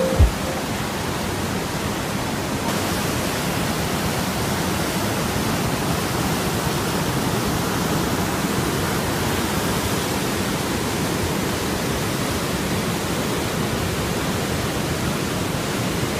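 Fast whitewater rushing through a narrow rock gorge: a steady, even roar of churning water. There is a brief thump at the very start.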